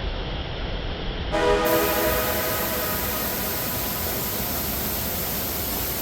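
Steady rushing of a waterfall. About a second in, a held, horn-like chord of steady tones comes in and fades away within a second or so.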